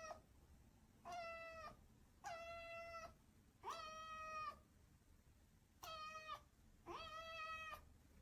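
Domestic cat meowing six times in a row, faintly, each call short and fairly level in pitch.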